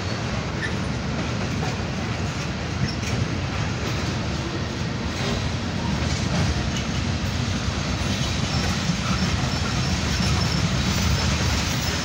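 Freight cars of a Norfolk Southern train rolling past: a steady low rumble of steel wheels on the rails.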